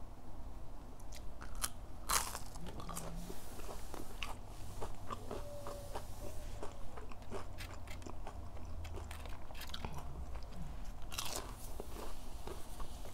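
Close-miked biting and chewing of crispy fried chicken nuggets: scattered small crunches and mouth clicks, with two louder crunching bites, one about two seconds in and one near the end.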